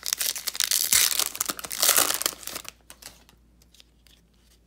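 Foil wrapper of a Panini Playoff football card pack being opened by hand, a dense crinkling rustle that stops about two and a half seconds in.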